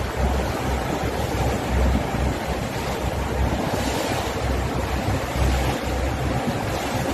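Wind buffeting the phone's microphone: a loud, steady rushing noise with irregular low thumps.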